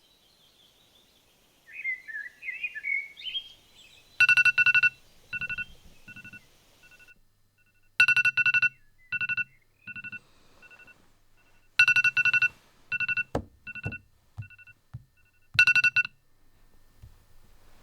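Birds chirping, then a phone alarm going off: rapid electronic beeps on one high pitch, in loud clusters that repeat every few seconds.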